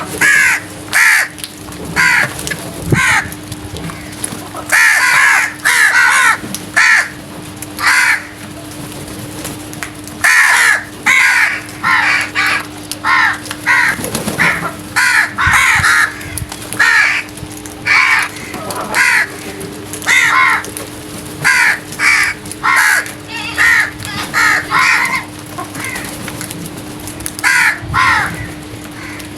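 Crows cawing again and again: loud, harsh caws in quick runs of several calls with short pauses between, over a faint steady low hum.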